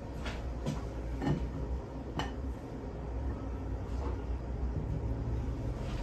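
Hands laying a refrigerated pie crust into a glass pie plate: a few soft knocks and rustles, the sharpest about two seconds in, over a steady low hum.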